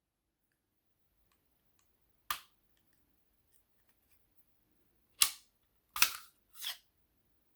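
Sharp metallic clicks of a Walther PPQ M2 pistol being taken apart by hand: one click about two seconds in, then three more in quick succession near the end.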